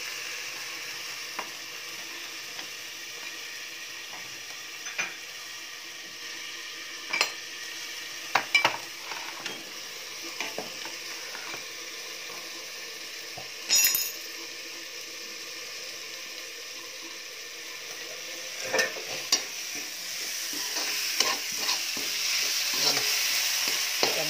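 Onion-tomato masala frying in a covered steel kadhai: a steady sizzle as the tomatoes soften under the lid, broken by a few clinks and knocks of steel, the loudest about halfway. The sizzle grows louder over the last few seconds, and a steel spatula stirs and scrapes the pan near the end.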